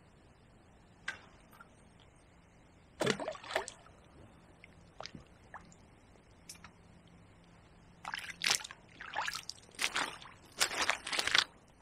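Water sloshing and trickling at the lake's edge as a caught tench is slipped back in, with a burst of splashing about three seconds in. Near the end there is a run of rapid sloshing and steps as the angler climbs back up the bank.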